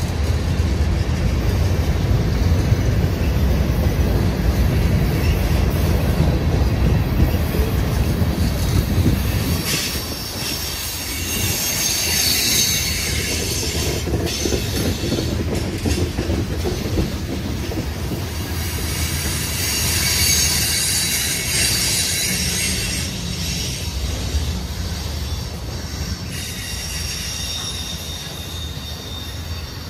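Freight cars of a mixed manifest train, including gondolas, tank cars and loaded autoracks, rolling past close by with a heavy, steady rumble of steel wheels on rail. High-pitched wheel squeal swells twice, about a third of the way in and again past the middle, and thinner squealing tones sound near the end.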